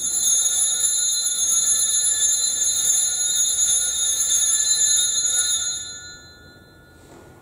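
Altar bells (sanctus bells) ringing for the elevation of the chalice after the consecration: a bright, steady high-pitched ringing that starts suddenly and dies away about six seconds in.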